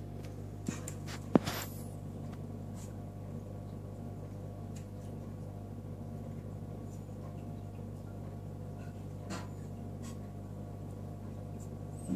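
Steady low electrical hum of running aquarium equipment, with a few sharp clicks, the loudest about a second and a half in.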